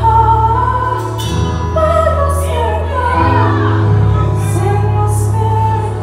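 Women's vocal group singing gospel live with a backing band, the melody moving over held bass notes that shift pitch twice.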